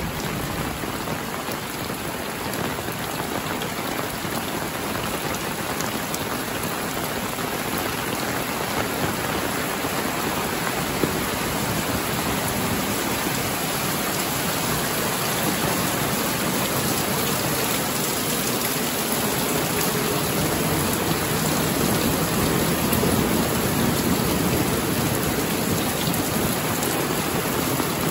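Heavy rain falling steadily, a dense even hiss with scattered drop ticks, growing slightly heavier over the second half. One sharp tick stands out about eleven seconds in.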